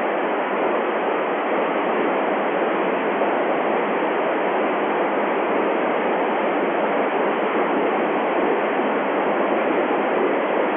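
Steady hiss of an FM radio receiver with its squelch open, tuned to an amateur satellite's downlink while no station is coming through the satellite repeater.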